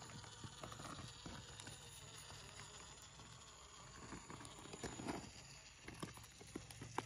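Axial SCX24 1/24-scale RC rock crawler picking its way over rock: faint, scattered small clicks and taps of its tyres and chassis on stone, with a cluster of louder knocks about five seconds in and a sharp knock near the end.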